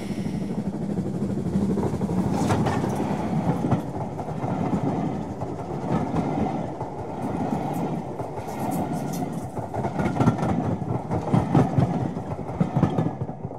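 Train rolling along the track: a steady rumble with the clickety-clack of wheels running over rail joints.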